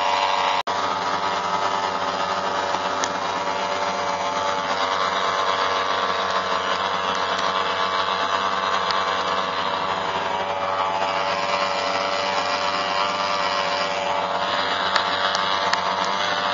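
Twin Gamefisher air-cooled two-stroke outboard motors running steadily at speed with a high buzzing drone, dropping out for an instant about half a second in.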